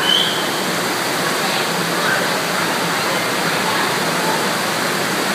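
FlowRider wave machine's pumped sheet of water rushing steadily up the padded slope: a continuous, even wash of water noise.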